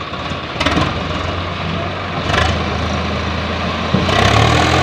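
Swaraj 744 XT tractor's diesel engine running steadily at low speed with a loaded trolley hitched. There are two short rushes of noise, about a second and two seconds in, and the engine grows louder near the end.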